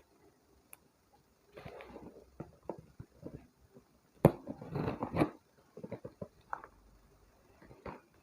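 Crackling and rustling of a plastic-wrapped mail parcel being handled and pulled at its packing tape, in irregular bursts and clicks, loudest about four to five seconds in.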